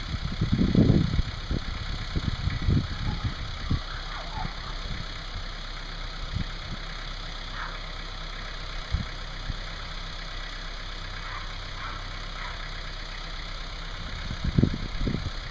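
Heavy demolition machine's engine running steadily, with scattered thumps and crashes as a house is torn down; the loudest bangs come about a second in and again near the end.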